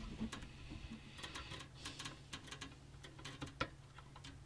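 Faint, irregular light clicks and ticks of plastic as a PC's 4-pin CPU power connector and its cable are handled and fitted onto the motherboard header, with one slightly sharper click about three and a half seconds in.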